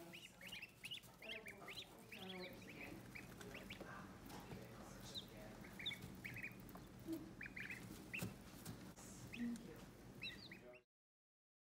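Ducklings peeping: scattered short, high chirps, a few at a time, until the sound cuts off suddenly near the end.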